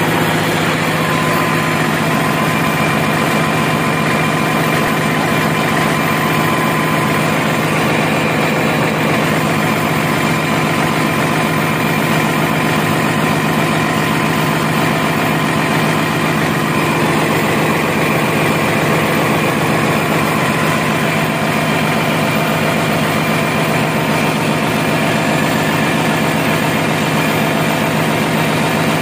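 Yanmar diesel generator engine running steadily, a loud, unchanging drone.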